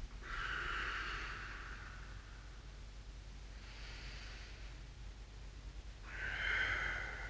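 A man's slow, audible breaths during a seated forward fold: a long breath just after the start, a fainter one around four seconds in, and a stronger one from about six seconds in.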